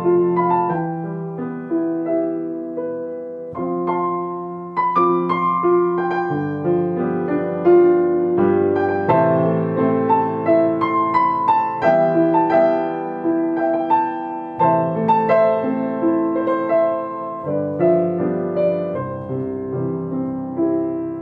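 Instrumental piano music: a melody of struck notes over chords, each note ringing and fading, with no singing.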